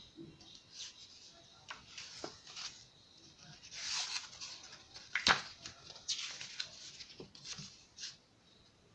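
Pages of a large book being turned by hand: paper rustling and sliding in short scrapes, with a sharp click a little past five seconds in.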